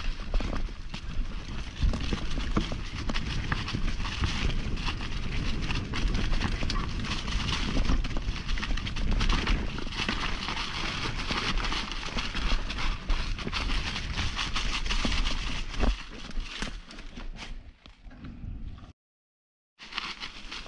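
Mountain bike clattering down a rocky downhill trail: a dense, continuous rattle of tyres, chain and frame over stones, with a deep rumble underneath. It eases off near the end and cuts out completely for under a second before starting again.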